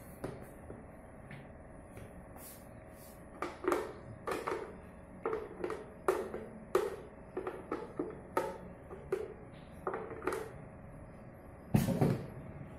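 Hollow plastic-on-plastic knocks, about a dozen at uneven spacing, as the last of the blended soap mixture is knocked and scraped out of a blender jug into a plastic tub. A heavier thump near the end.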